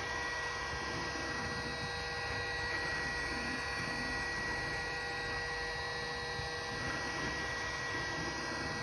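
Heat gun running: a steady blowing hum with a constant high whine.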